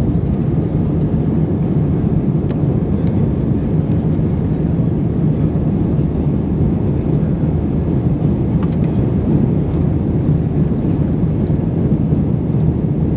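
Airplane noise: a steady low rumble with a faint hum, holding an even level.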